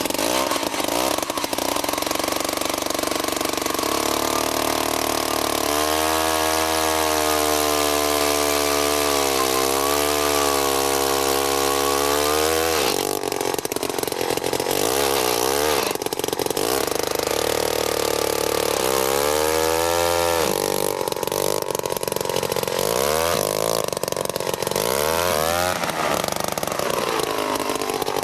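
Gas-powered ice auger's small engine running hard, its pitch swooping up and down several times as the spiral bit bores a hole through the lake ice.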